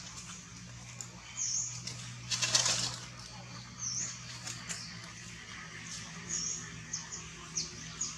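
A string of short, very high chirps a second or two apart, with a brief rustle about two and a half seconds in.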